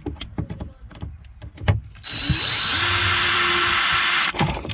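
Cordless drill-driver driving out a mounting screw on an old boat exhaust blower's housing: a few light clicks as the bit is seated, then the motor spins up and runs steadily for about two seconds before stopping suddenly.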